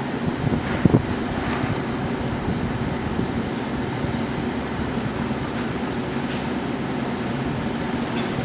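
New York City Subway train noise heard from inside a car on elevated track: a steady rumble and hum with a few clicks. A sharp knock comes about a second in.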